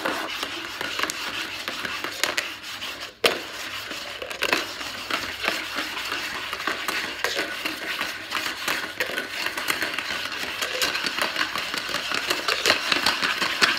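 Dice rattling and clattering inside a cup swept quickly around a hardwood floor: a dense, steady clatter of tiny clicks, broken by a short pause about three seconds in.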